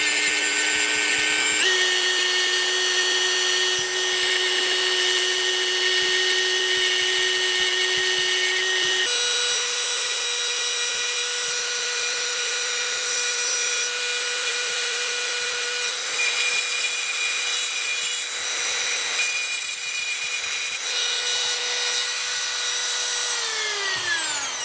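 Dremel 4000 rotary tool running at high speed, grinding a hook into a thin metal wiper-insert strip, with a steady high whine over gritty grinding noise. The whine steps up in pitch twice, about two and nine seconds in. Near the end the tool is switched off and the whine falls away as it spins down.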